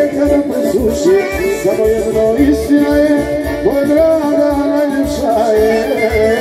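Live Balkan folk music from a band on electronic keyboards, played through loudspeakers: an ornamented, wavering melody over a steady beat.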